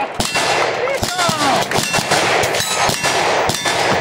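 Gunfire from many firearms on a shooting range: irregular, overlapping shots with ringing echoes, and a voice shouting briefly about a second in.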